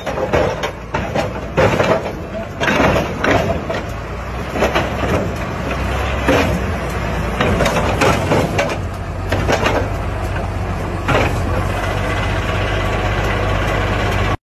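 Diesel engine of a large wheeled tractor towing a heavy steel drum roller, running steadily and getting louder as it comes closer, with irregular knocks and clanks from the rig.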